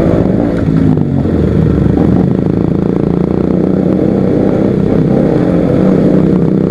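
KTM RC sportbike's single-cylinder engine running at a steady cruise, heard from on the bike, with wind and road noise.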